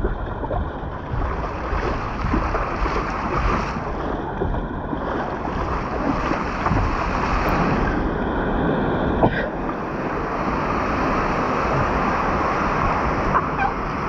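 Steady rush of running water from the mat racer slide's flowing lanes and wet runout, an even hiss throughout, with one sharp click a little past nine seconds.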